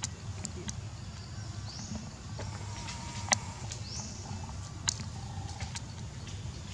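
Outdoor ambience under a low steady rumble: a high call that sweeps upward, heard twice, with scattered sharp clicks, the loudest a little before halfway.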